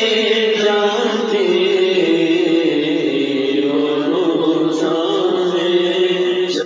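A naat, an Urdu devotional song, sung in a slow melody with long drawn-out notes; it breaks off suddenly at the end.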